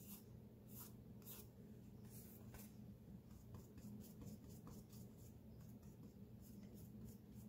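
Faint swishing and scratching of a paintbrush stroking acrylic paint across a textured canvas, in short strokes that come quicker and closer together near the end. A low steady hum lies underneath.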